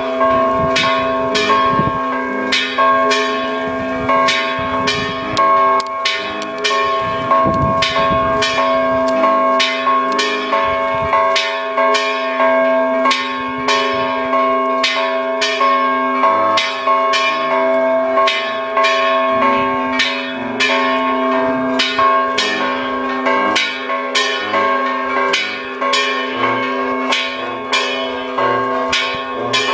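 Church bells rung in a rapid, uneven peal at close range, about two strikes a second, their tones ringing on between strikes.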